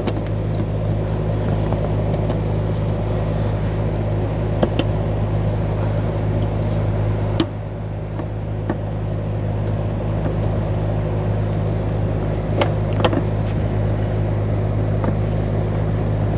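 A steady low hum throughout, with scattered light clicks and taps as gloved hands handle the hoses and fittings on top of a fuel pump module.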